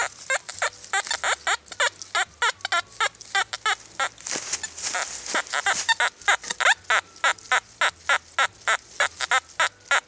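XP Deus metal detector giving rapid repeated short chirping signal tones, several a second, as its coil sweeps back and forth over a target, mixed with the coil brushing dry leaves. It is a target signal that the detectorist reads as non-ferrous metal, though the display shows no ID number.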